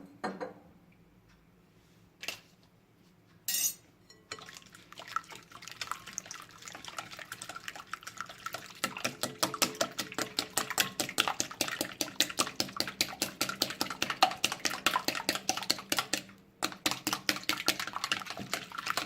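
A hand whisk beating eggs in a bowl: a few separate knocks at first, then a rapid, steady run of wire clicks against the bowl from about four seconds in, with a brief stop near the end.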